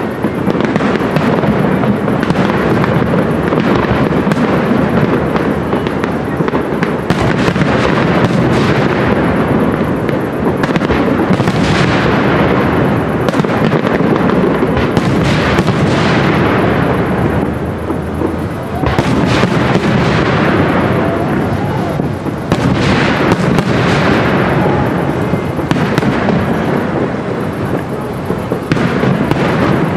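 Aerial fireworks display: a dense, continuous barrage of shells bursting and crackling, with brief lulls about 18 and 22 seconds in.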